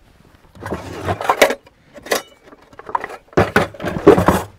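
Cooking utensils clattering and rattling as they are rummaged through and picked up, in a few irregular bursts, the loudest near the end.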